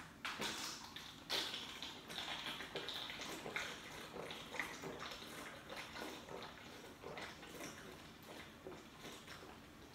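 A can of Guinness stout being gulped down: a run of swallows with liquid glugging from the can, loudest in the first few seconds, then fainter and more spaced out.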